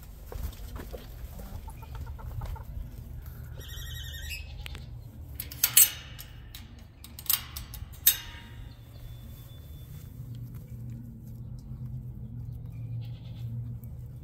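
Metal gate latch on a wire-panel chicken pen being worked by hand: several sharp metallic clanks between about five and a half and eight seconds in. Before them, about four seconds in, a short high-pitched animal call.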